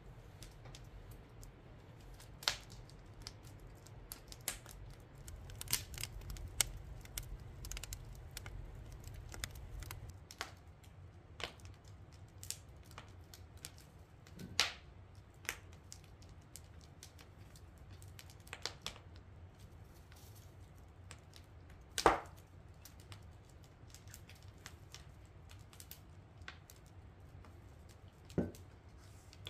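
Wood fire crackling, with irregular sharp pops and snaps and one loud pop about three-quarters of the way through. A low rumble underneath stops about a third of the way in.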